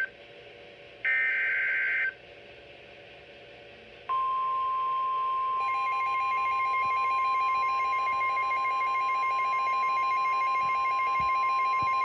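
NOAA Weather Radio Emergency Alert System broadcast for a severe thunderstorm warning, heard through a Midland Public Alert weather radio. About a second in comes a one-second burst of buzzing digital data tones, the SAME header. About four seconds in, the steady 1050 Hz warning alarm tone starts and holds, and a fast pulsed beeping joins it.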